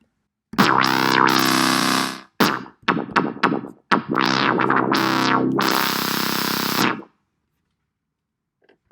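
Software synthesizer on Ableton's Learning Synths web page, played by clicking in its boxes: a run of several buzzy, overtone-rich notes of different lengths, the tone sweeping brighter and darker within them, stopping about seven seconds in.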